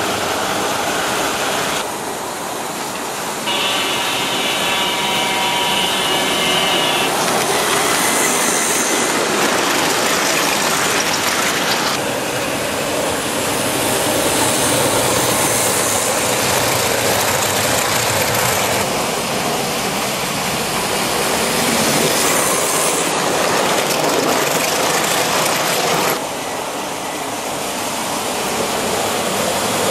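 American Flyer S-gauge Silver Flash PA-1 diesel and passenger cars running on the layout's track: the steady whir of the locomotive's motor and the clatter of wheels over rails. A few seconds in, the B unit's electronic horn sounds once, a held tone lasting about three and a half seconds.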